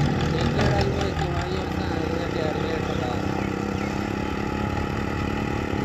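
Belarus tractor's diesel engine running at a steady speed while it works a front loader.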